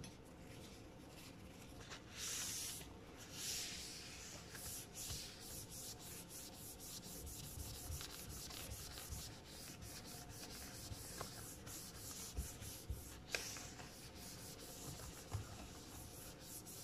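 A tissue dampened with rubbing alcohol rubbed back and forth over a MacBook's aluminium lid to clean off scuffs: a faint scrubbing hiss of repeated strokes, louder between about two and four seconds in, with a few light ticks later on.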